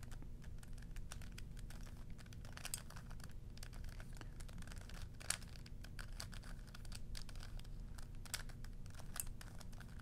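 Plastic Rubik's Cube faces being twisted by hand in quick succession: a running patter of small clicks and clacks, with a few sharper snaps.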